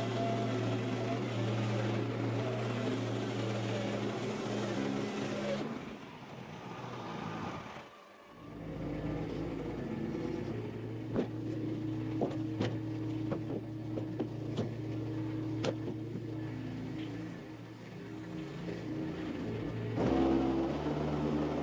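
An engine running steadily, dropping away briefly about a third of the way in and then picking up again. Several sharp knocks sound over it midway through, and its note shifts near the end.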